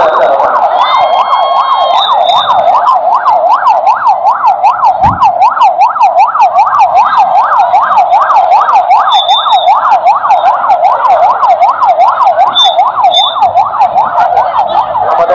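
Ambulance's electronic siren sounding in fast yelp mode, its pitch sweeping rapidly up and down about three times a second without a break.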